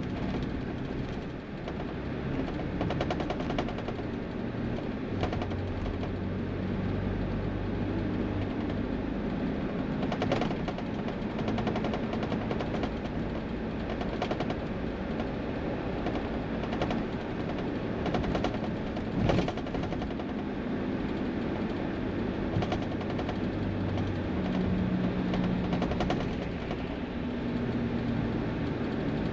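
Heavy diesel vehicles running on a highway: steady engine notes that change pitch in steps, over continuous road noise with a rapid rattling clatter.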